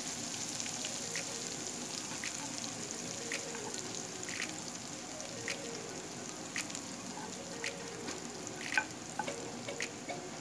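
Chopped garlic and mint sizzling in hot oil in a frying pan while a wooden spoon stirs them, with sharp crackles about once a second.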